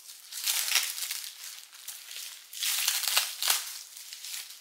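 Thin plastic wrapping crinkling as it is handled and pulled away from a plastic nursery pot, in irregular rustles with two louder surges, about a second in and about three seconds in.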